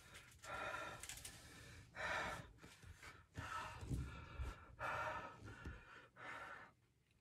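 A man breathing hard through an open mouth, about five noisy breaths in and out, from the burn of extremely hot chili jerky.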